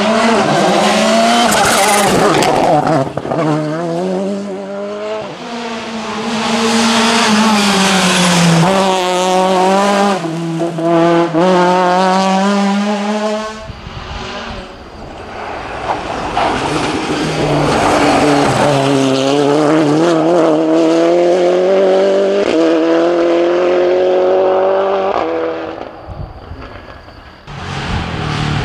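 Rally cars at full speed, one after another. First a Volkswagen Polo R5's engine revs up and down through the gears and climbs in a long pull. After an abrupt change a second car's engine rises steadily through a long run of acceleration, drops away suddenly near the end, then another car comes in loud.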